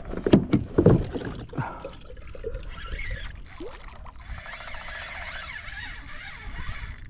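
Water sloshing against a kayak hull, with two loud splashing thumps in the first second as a snook lunges at the boat, then a few smaller splashes. From about four seconds in, a steady high whirring carries on.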